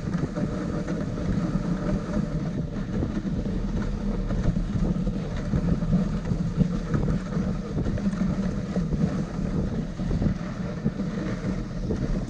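Steady rushing and scraping of a dog-drawn rig gliding over packed snow, with wind buffeting the microphone.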